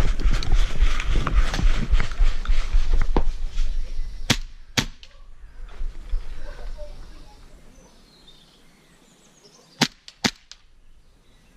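Rustling movement and handling noise with a low rumble for the first few seconds. Then an airsoft gun fires two quick pairs of sharp shots, each pair about half a second apart.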